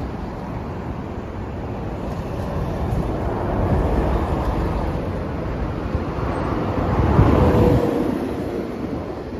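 Kawasaki KLX230S's air-cooled single-cylinder four-stroke engine running, getting louder twice, about four seconds in and again around seven to eight seconds in.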